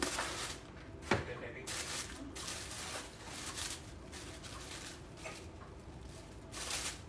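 Paper and cardboard packaging rustling and crinkling in irregular bursts as a gift box is unwrapped and opened, with one sharp knock about a second in.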